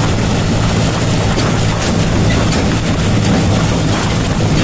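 John Deere 5045D tractor's three-cylinder diesel engine running steadily at road speed, with a constant rush of tyre noise on wet asphalt.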